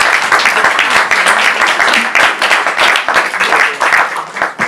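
Audience applauding, a dense run of hand claps that fades out near the end.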